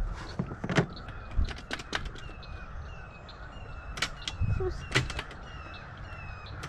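A bird calling over and over in short falling chirps, about twice a second, starting a couple of seconds in. Scattered sharp clicks and knocks sound throughout; no engine is running.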